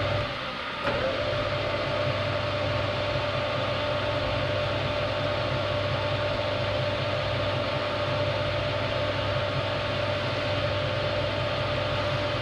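Machine tool motor running with a steady drone, a held tone and an even hiss; the sound drops briefly and returns with a click about a second in.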